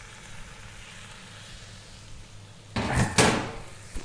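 Beef sizzling steadily in a stainless steel pot. About three seconds in, utensils clatter loudly against the pot, with another short knock near the end as the meat is stirred.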